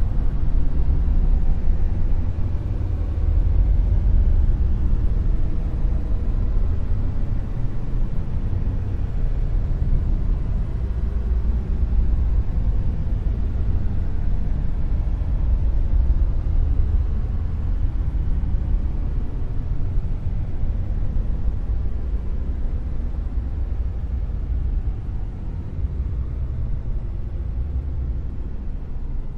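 Dark noise: a steady, deep, bass-heavy noise with no tone or rhythm, thinning out toward the highs, easing slightly in level in the last few seconds.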